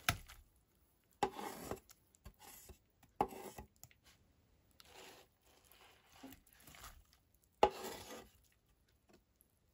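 Metal box grater and wooden cutting board knocking and scraping against a ceramic bowl as wet grated zucchini is pushed off into it. There are four separate knocks, each followed by a short scrape, with quieter scraping between them.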